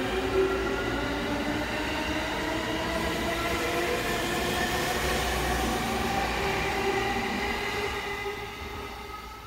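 E231-900 series electric commuter train accelerating away from a station platform: the whine of its VVVF-inverter traction motors climbs slowly in several tones together over the rumble of the wheels on the rails. The sound fades from about eight seconds in as the last car moves off.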